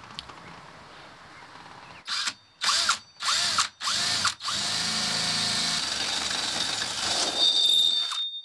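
Cordless drill driving a hole saw into a boat's side panel at the start of the cut: a few short trigger pulls, each a quick rising and falling motor whine, then a steady run of about four seconds as the saw bites in, with a high squeal near the end before it stops suddenly.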